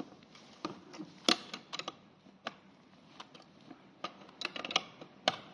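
Open-end steel wrench clinking against a nut and the metal seat clamp as the bolt under the seat is tightened: irregular sharp metallic ticks, the loudest about a second in and near the end.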